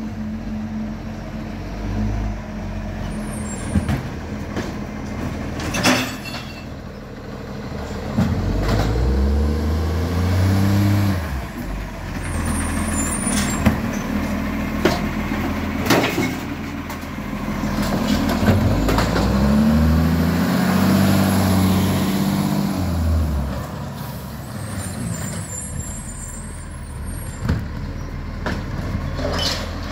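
Side-loader garbage truck's diesel engine running, revving up twice and falling back as its hydraulic arm lifts and empties wheelie bins. Several short sharp hisses from its air brakes.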